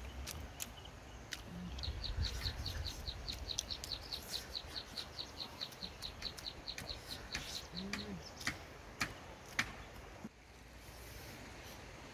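A bird calling a fast run of repeated high chirps, about six a second, for several seconds, over sharp clicks and crunches of someone chewing crisp grilled chicken; a few louder crunches come near the end.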